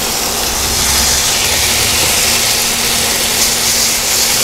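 Filet mignon steaks sizzling steadily on a hot cast iron grill plate as they are turned with tongs, over the low steady hum of the induction cooktop.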